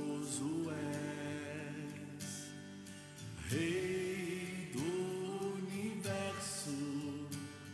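A man singing a gospel worship song over instrumental backing, in long held notes that glide up into each new phrase.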